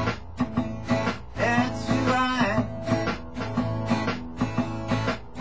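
Acoustic guitar strummed in a steady blues rhythm, with a harmonica played from a neck rack, its wavering, bending notes loudest around the middle.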